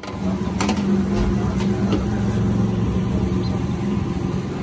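An engine running steadily with a low, even hum, with a few short clinks over it.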